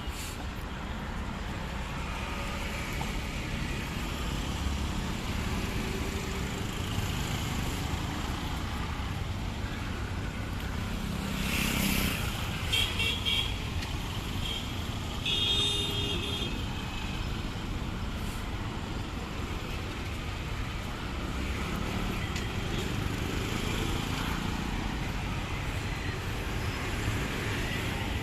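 Busy city road traffic running steadily, with a few short horn beeps a little before halfway and a longer horn honk just after.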